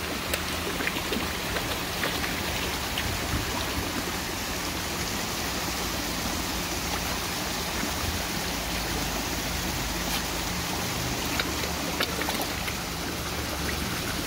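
Water running and splashing steadily into a fish pond, with a few faint ticks.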